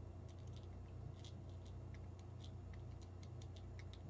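Faint scattered clicks and taps of a small metal nut and screwdriver being worked into an acrylic robot hip bracket by hand, over a steady low hum.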